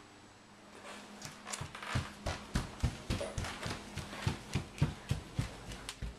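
Footsteps on a hardwood floor, about three steps a second, starting about a second and a half in.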